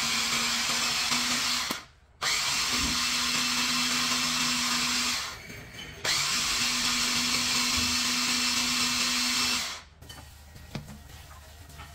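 Electric mini food chopper's motor and blade whirring as they blend cheesecake batter, run in three pulses with two short breaks, and switched off about ten seconds in.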